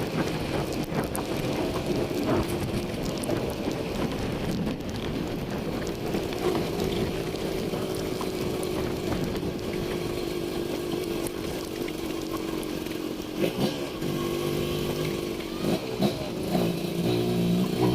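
Motorcycle engine running while the bike is ridden, its note becoming clearer and stronger in the last few seconds.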